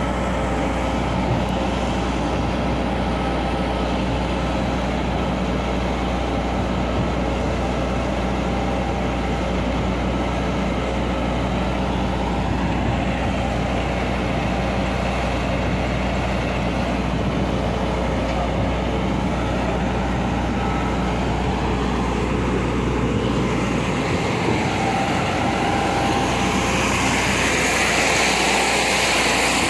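Heavy diesel construction machinery running steadily at a continuous flight auger piling site: the piling rig and the concrete pump truck's engines, a constant low engine drone. A hissing noise grows louder near the end.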